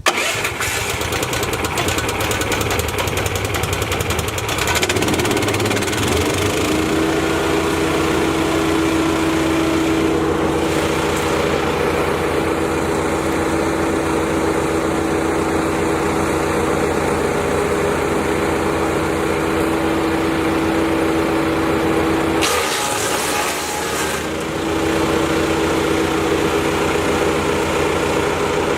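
Briggs & Stratton XR2100 420cc petrol engine on a wood chipper starting up and running, rising about five seconds in and settling into a steady hum at working speed from about six and a half seconds, with the chipper drum spinning. A short rushing hiss with a dip in the low rumble comes about three quarters of the way through.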